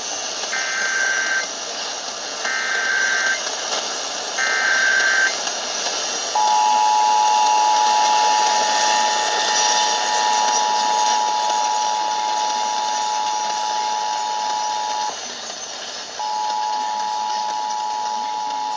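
Emergency Alert System SAME header: three screeching data bursts of about a second each, then the steady two-tone EAS attention signal. The attention signal breaks off briefly about 15 seconds in, then starts again. Hiss from the broadcast is heard throughout.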